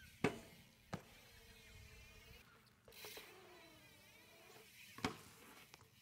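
BMX bike wheels landing hard on concrete: a sharp smack, another just under a second later, and a third about five seconds in. Between the impacts the tyres rolling on the concrete make a faint buzzing hum.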